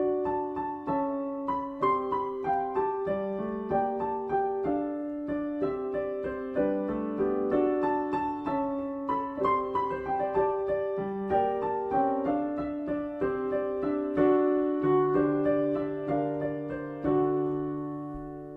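Solo piano playing a calm instrumental piece, notes and chords struck at an even pace, ending on a held chord that fades away.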